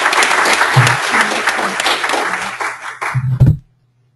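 Audience applauding with many hands clapping, thinning out and stopping about three and a half seconds in.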